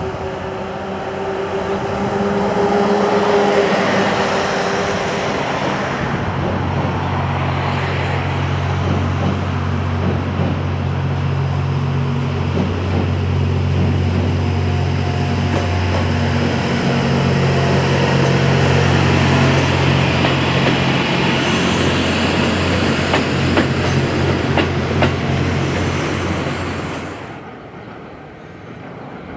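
Diesel train passing, its engine running with a steady low hum and a few sharp clicks near the end; the sound cuts off suddenly about 27 seconds in.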